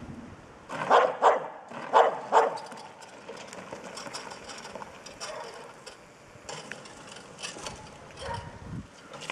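Small terrier barking at a bear: five sharp barks in quick succession in the first two and a half seconds, then only fainter sounds.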